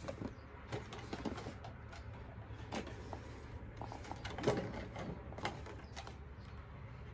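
Cardboard album box and plastic packaging being handled: scattered taps, scrapes and rustles as the box is lifted and turned, with a sharper knock about four and a half seconds in.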